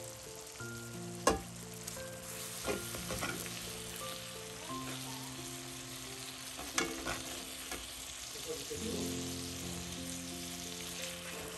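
Food sizzling in a frying pan, with a few sharp clacks of a utensil against the pan, the loudest about a second in and more around the middle. Soft background music with held notes plays underneath.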